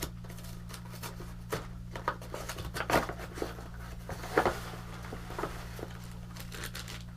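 A package being opened by hand: packaging crinkling and tearing, with scattered clicks and a couple of louder handling knocks about three and four and a half seconds in, over a steady low hum.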